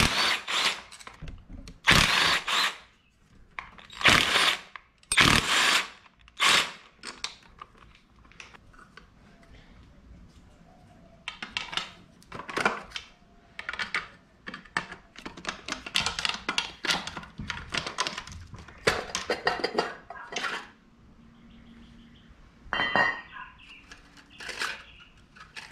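Cordless impact hammering out intake runner bolts on a J-series V6 in five short loud bursts over the first seven seconds or so. Then a long run of short metal clinks and knocks as the aluminium runner is worked loose with a pry bar.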